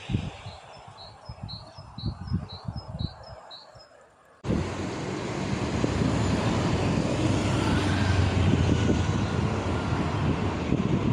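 Quiet outdoor rustling with a run of high chirps, about three a second. About four seconds in, an abrupt cut brings a loud, steady rushing noise with a low hum underneath.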